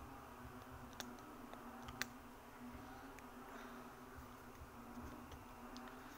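Faint steady low hum, with small clicks and taps of fingers handling a small plastic cream jar; two sharper clicks about one and two seconds in.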